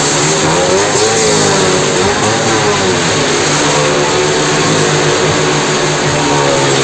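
Car and motorcycle engines running hard as they circle the vertical wooden wall of a well-of-death drum. The pitch wavers up and down about every second and a half over a steady drone.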